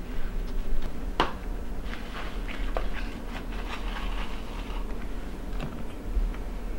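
Small clicks and taps of colored sticks being handled and cut with a knife on a plastic plate, with one sharper click about a second in, over a low steady hum.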